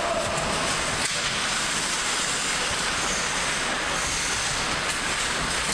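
Ice-rink noise during hockey play: a steady hiss of skates on the ice under the hum of the arena.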